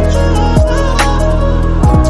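Background music with a steady electronic beat and deep bass notes that drop sharply in pitch.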